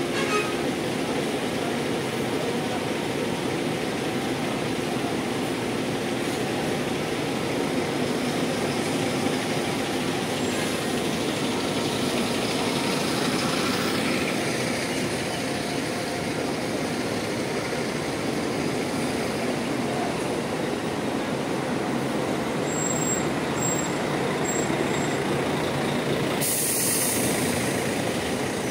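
Diesel bus engines running in a bus terminal: a steady mechanical rumble. About two seconds before the end there is a short hiss of air, like a bus's air brakes being released.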